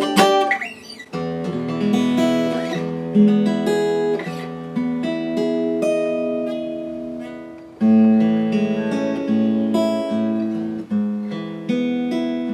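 Martin GPC PA3 acoustic guitar played unplugged: chords strummed and picked and left to ring, changing every second or two. A louder strummed chord comes in about eight seconds in.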